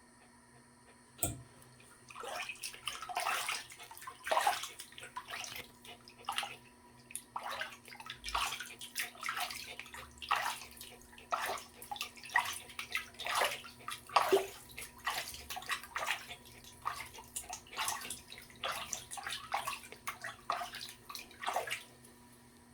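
Bath water in a tub being splashed and sloshed around a small dog, a quick irregular run of short splashes after a sharp click about a second in.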